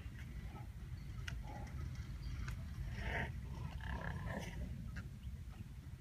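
White rhinoceroses making a few short, faint vocal sounds, the clearest about three seconds in and just after four seconds, over a steady low rumble.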